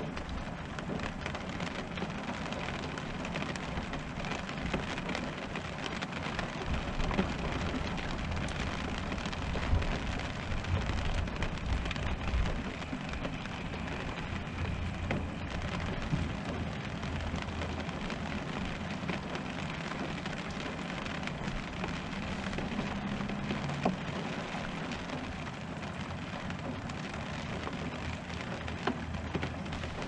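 Rain falling on an RV's roof, a steady patter with a few louder drops and a low rumble that swells about ten seconds in.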